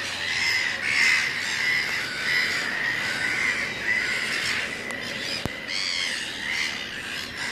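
Black-billed gull colony calling: many short gull calls overlapping without a break. A single sharp click about five and a half seconds in.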